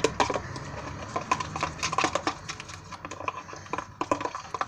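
Slime being stirred in a bowl, making quick irregular clicking sounds.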